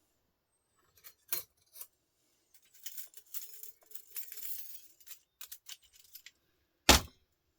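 Small metal scrap parts being handled and worked by hand: a few scattered clicks, a stretch of scraping and rustling in the middle, and one sharp knock near the end, the loudest sound.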